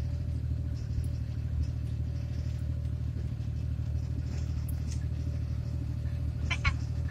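Steady engine drone and road rumble of a car heard from inside its cabin while it drives along at an even pace, without revving.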